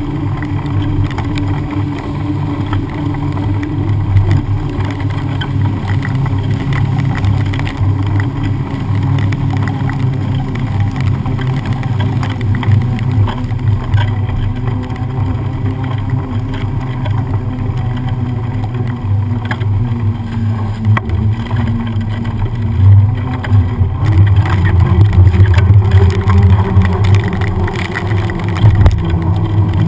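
Continuous low rumble of wind on a bike-mounted camera and bicycle tyres rolling through water on a wet road, with cars driving past. It gets louder in the last few seconds, with a rising engine-like hum as a car comes close.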